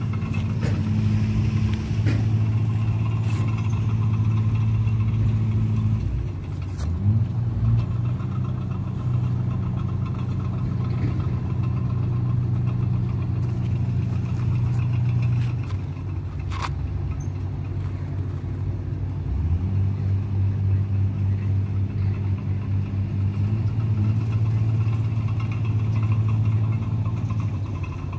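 An engine running with a steady low hum. Its speed drops and picks up again a few times, around six seconds in, then near sixteen and twenty seconds.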